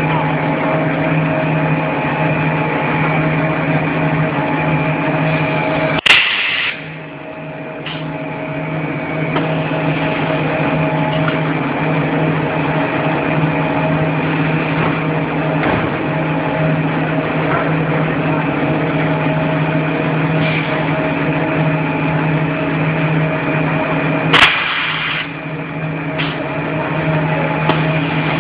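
Brick-making machinery on a clay extrusion line running with a steady, loud hum. Twice, about 18 seconds apart, a sharp click comes with a short burst of hiss, and the hum dips briefly after each.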